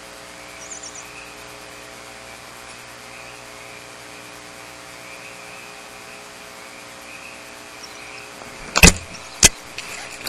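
Steady hiss and electrical hum from a barn owl nest-box camera's microphone, with a faint steady high-pitched drone. Near the end come two loud, sharp knocks about half a second apart.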